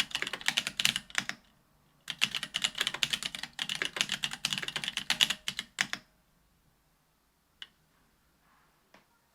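Typing on a BOK AL.BOK custom mechanical keyboard with stock Ethereal Panda tactile 68g switches: rapid keystrokes in two runs, with a short pause about 1.5 s in. The typing stops about 6 s in, followed by two faint single clicks.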